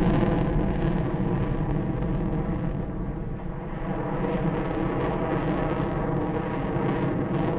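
Aircraft engine noise: a continuous roar with a stack of steady tones running through it. It fades over the first three or so seconds, then swells again.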